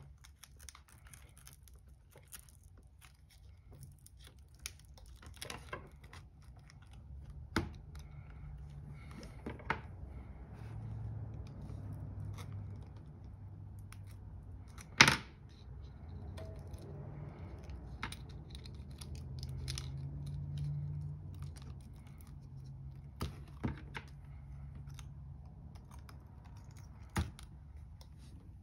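Plastic playing cards and a pry tool working under the cracked glass of an iPad Air to cut its adhesive: scattered clicks, taps and scraping, with one sharp snap about halfway through.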